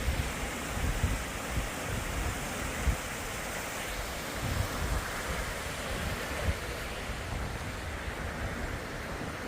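Wind blowing on the microphone: a steady rushing hiss with irregular low rumbling gusts buffeting it.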